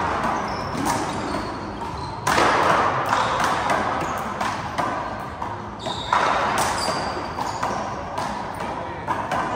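Handball rally: the rubber handball is struck by hand and slapped against the wall and floor, giving sharp cracks with a long echo. The two loudest come about two seconds in and again about six seconds in, with short sneaker squeaks on the court floor between them.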